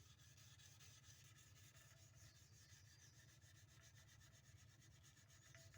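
Near silence, with very faint rubbing of sandpaper worked by hand along a steel knife blade.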